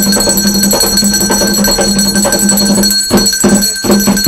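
Background music with sustained, bell-like ringing tones over a steady low hum and a pulsing beat.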